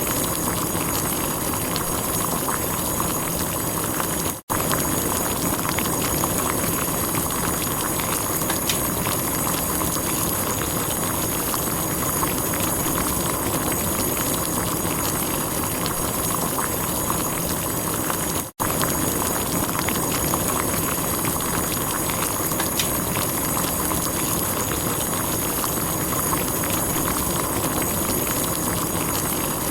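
Water at a rolling boil, a steady dense bubbling and popping. It cuts out for an instant twice.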